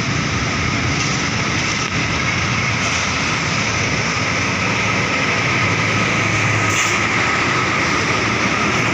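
Heavy road traffic passing close by: a steady rush of engine and tyre noise from large vehicles such as buses and trucks.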